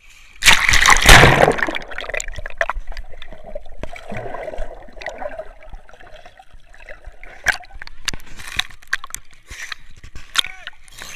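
Seawater splashing as a handheld camera is plunged under the surface, a loud splash about half a second in, followed by muffled underwater sloshing and gurgling with scattered clicks.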